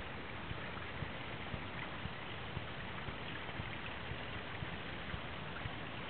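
Steady rush of water splashing from a pool waterfall, with soft low thumps recurring about twice a second.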